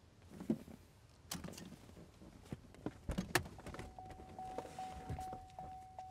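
Car interior sounds: clicks, knocks and rustling as a car door is opened and someone climbs out, then the car's door-open warning chime sounding steadily from about halfway in.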